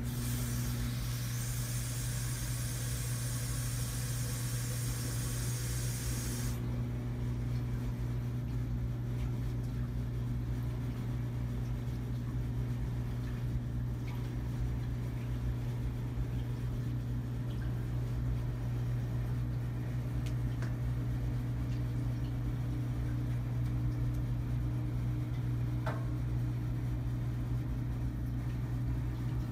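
Steady low hum, constant in level throughout, with a high hiss over it that cuts off suddenly about six and a half seconds in.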